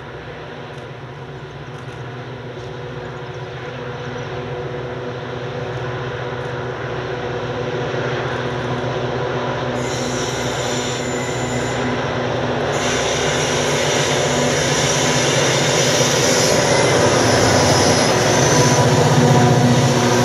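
Several diesel-electric locomotives hauling a freight train and working hard, their engines giving a steady deep drone that grows louder as the train approaches and passes. High-pitched wheel squeal rises over the engines from about halfway.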